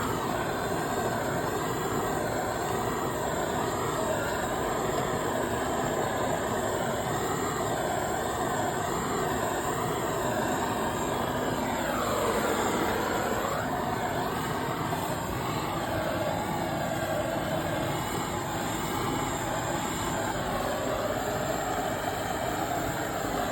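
Gas blowtorch flame running steadily, heating heat-shrink sleeves to seal an underground power cable joint.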